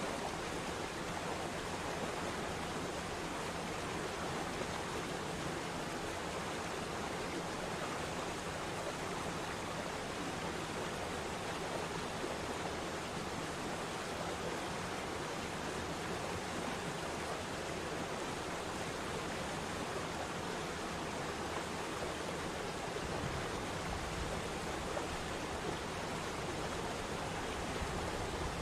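Water of a waterfall rushing steadily, an even, unbroken hiss with no other sounds standing out.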